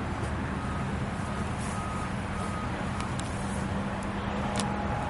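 A vehicle's reversing alarm sounding a string of short beeps over a steady low engine rumble.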